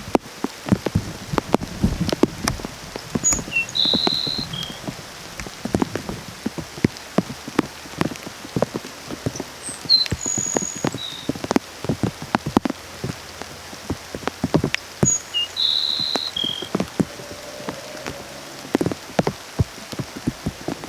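Grassland sparrow singing three times: each phrase is a few thin high notes and a short buzz. Rain drips and patters with loud, irregular drops.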